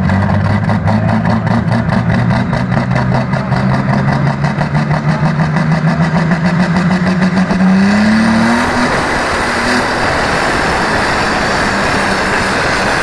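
Pulling tractor's diesel engine idling with a fast, even pulse. About eight seconds in it revs up, rising in pitch, and then runs at full throttle with a loud, rough noise.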